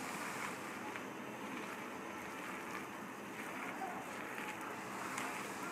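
Hands squishing and mixing mashed potato with chopped onion, chilli and mint on a plate: soft, faint squelching and a few light clicks over a steady low hiss.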